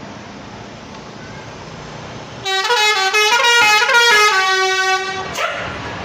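Basuri telolet horn on a tour bus playing a short multi-note tune, starting a couple of seconds in and lasting about three seconds, stepping through several pitches.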